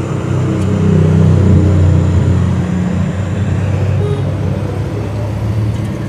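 Steady hiss of a handheld gas torch flame heating a refrigerator filter drier for brazing, under the low rumble of a motor vehicle engine that swells to its loudest about a second and a half in and then eases.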